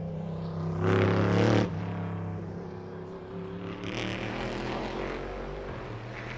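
Race cars on a wet track: one engine passes loudly about a second in and cuts off abruptly, then another car goes by around four seconds in. A steady low drone runs underneath.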